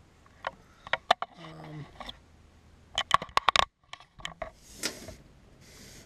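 Small hard parts clicking and rattling as they are handled. There are a few separate clicks early, a quick cluster of clicks about three seconds in, then two short rustling scrapes near the end.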